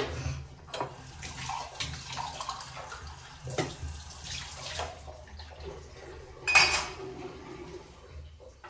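Dishes and utensils knocking and clinking at a kitchen counter: a few sharp knocks, with the loudest ringing clatter about six and a half seconds in.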